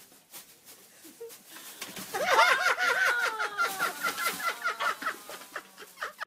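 Plastic bin liner rustling and crackling as a pet climbs down into a kitchen trash bin. From about two to five seconds in, a loud run of high, quickly repeated pitched cries sounds over it.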